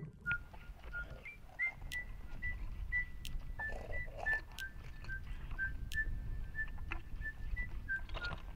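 A simple tune of short, high whistle-like notes hopping between a few pitches, about two to three notes a second, over a low steady rumble.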